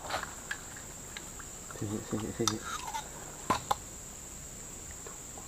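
Steady high-pitched drone of insects such as crickets or cicadas, with a brief low mumble of a man's voice about two seconds in and a couple of sharp clicks a little after the middle.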